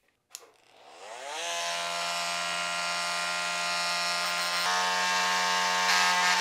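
Small handheld power tool starting up off camera with a rising whine, then running steadily while cutting into a plastic controller box, with a slight change in pitch about two-thirds of the way through; the plastic is being cut hard enough to melt.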